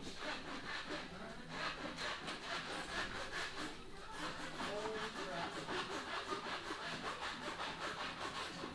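Rhythmic rasping strokes of a tool being worked back and forth on a surface, several strokes a second, with faint voices under it.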